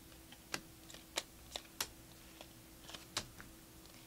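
Stiff Prizm basketball trading cards clicking as they are slid one by one from the front of a stack to the back: about six sharp, irregularly spaced clicks.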